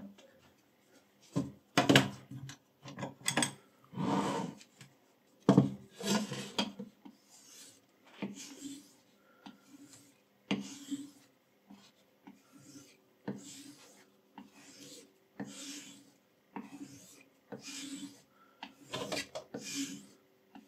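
A kitchen knife edge being stroked by hand along a strop coated with green polishing compound: a run of short rubbing scrapes about once a second, honing the freshly sharpened edge. A few louder knocks come in the first few seconds.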